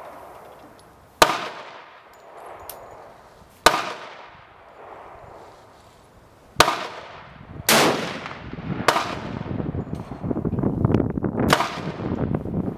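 Rifle gunshots at a shooting range: six sharp reports over about ten seconds, each trailing off in an echo. From about halfway through, gusty wind buffets the microphone.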